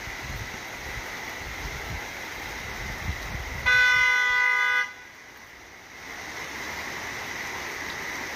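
A vehicle horn gives one steady honk of a little over a second, about halfway through, over a steady background rush and low rumble.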